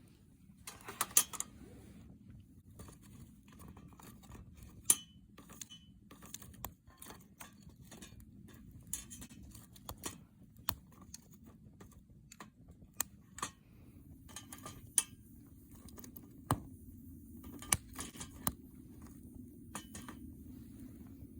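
Wood campfire burning, crackling with irregular sharp pops over a low steady rumble of the flames.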